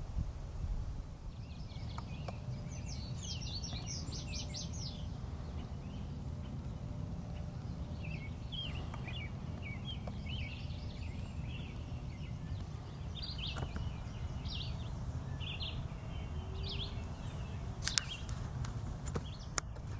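Small birds singing outdoors: a fast trill of repeated high notes in the first few seconds, then scattered chirps, over a steady low rumble of wind or field noise. A few sharp clicks come near the end.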